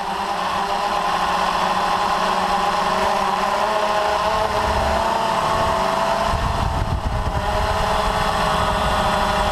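Quadcopter's electric motors and propellers whining steadily, as heard from the aircraft itself. The pitch wavers slightly as the craft manoeuvres, and a low wind rumble grows about six seconds in.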